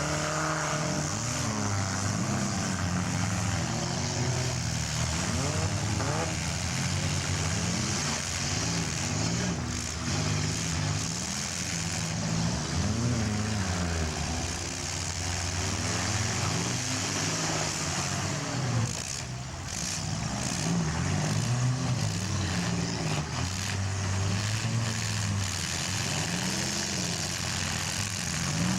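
Engines of several small demolition-derby cars revving up and easing off again and again, overlapping one another.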